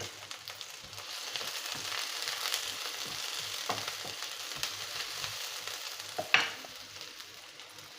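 Sliced onion and green chilli sizzling in hot oil in a pan, with the clicks of a spoon stirring them. There is one sharper knock about six seconds in, and the sizzle eases near the end.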